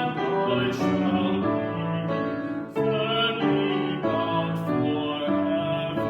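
Singing with piano accompaniment, a slow melody in long held notes.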